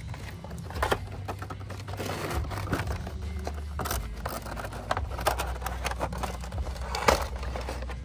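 Cardboard toy box and its plastic packaging being handled and opened: irregular scraping, rustling and crinkling, with a sharper click about a second in and another near the end.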